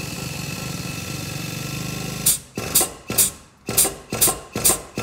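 Frame-machine puller running with a steady mechanical hum while it pulls on the chained sill, then stopping abruptly a little over two seconds in. A series of sharp metal hammer blows on the bodywork follows, about two a second.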